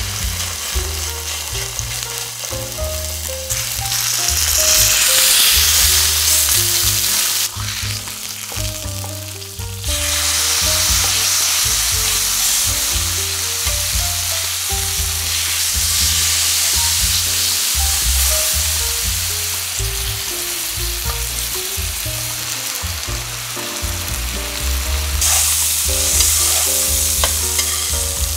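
Pork chops sizzling in hot oil in a frying pan, a dense spitting hiss that swells and dips, with background music underneath.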